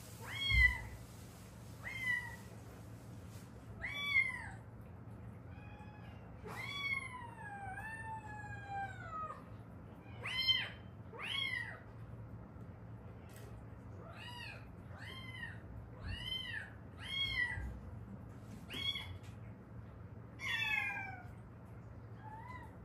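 Domestic cat meowing again and again: about fifteen short meows that rise and fall, with two longer, drawn-out meows falling in pitch about seven to nine seconds in.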